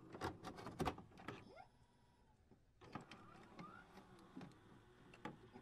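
Near silence broken by a few faint clicks, most of them in the first second.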